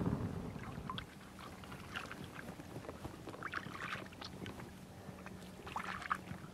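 Hands splashing and scooping in shallow river water at the bank, in three light bouts of splashing.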